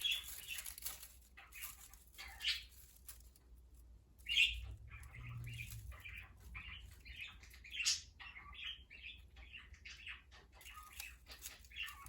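Pet budgerigars chirping and chattering in quick, short calls, with a few bursts of wing flapping near the start and near the end.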